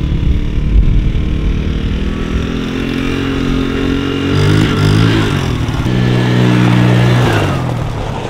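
Mini ATV's small engine running as it is ridden. About halfway through it revs up and back down, then holds at higher revs for a couple of seconds before easing off near the end.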